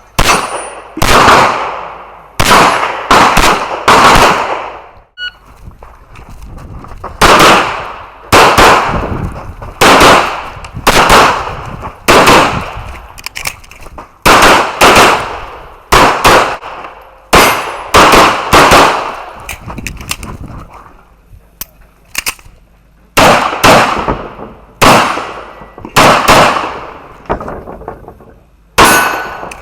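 Handgun shots fired singly in quick strings, roughly one a second, each with a short echo, with brief pauses of a few seconds twice between strings.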